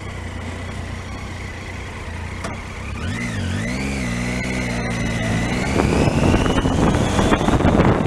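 Motorcycle engine idling steadily, its pitch dipping and rising twice about three seconds in, then getting louder as the bike pulls away, with wind noise building on the microphone.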